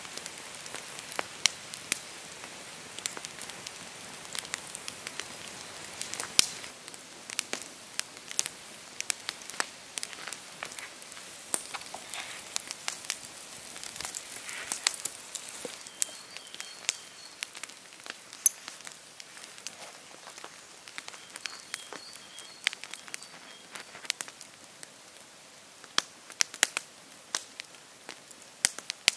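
Open wood fire of burning branches crackling, with many irregular sharp pops and snaps over a soft hiss, as it chars a board laid over it.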